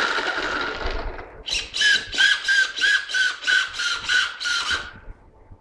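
Electric motor and drivetrain of a Traxxas Slash 4x4 brushless RC truck whining as it spins its wheels freely: a steady whine for about a second, then a run of short throttle blips, about three a second, that stop shortly before the end.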